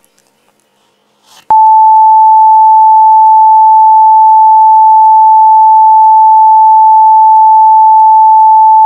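Censor bleep: one loud, steady, high single-pitch tone that starts about a second and a half in and holds unbroken for about seven seconds, blanking out the speech. Before it, a moment of near quiet.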